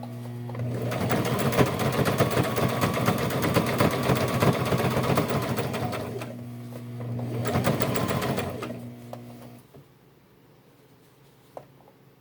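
Sewing machine stitching a denim jeans hem: the motor hums, the needle runs fast for about five seconds, slows briefly, runs again, and the machine stops about ten seconds in.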